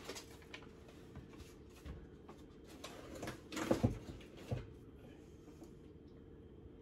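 Kitchen handling noises: a scatter of light knocks and clatters of things being picked up and set down on a counter, with a cluster of louder knocks a little before the middle. Under them is a faint, steady, low hum.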